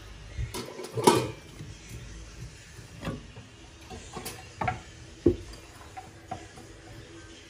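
Scattered light knocks and clinks of kitchenware being handled, about seven in all, over a faint steady hum.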